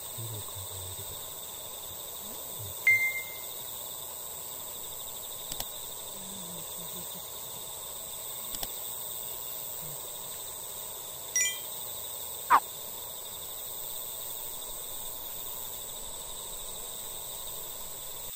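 Lakeside dusk ambience: a steady high insect trill, with a few short chirps and one quick downward-sliding whistle about twelve seconds in.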